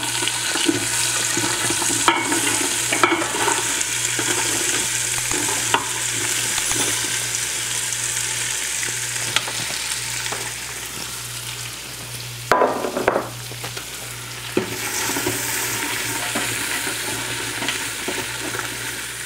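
Diced carrots and potatoes sizzling in melted butter in the stainless inner pot of an Instant Pot on sauté mode. A few knocks and scrapes come in as the vegetables are tipped in and stirred with a spatula.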